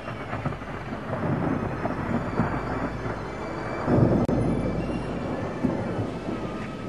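Thunder rumbling, building to a loud clap about four seconds in, then rolling away.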